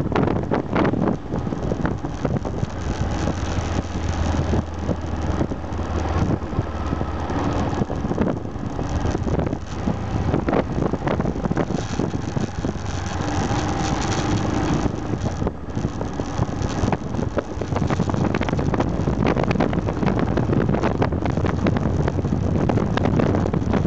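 Aprilia Pegaso 650 Strada's single-cylinder engine running under way on the road, with wind buffeting the microphone.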